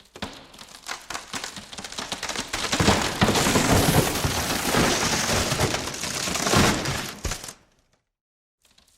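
Plywood breaking: a long run of splintering cracks that builds up, is loudest in the middle and stops abruptly about two-thirds of the way through, with faint crackles starting again near the end.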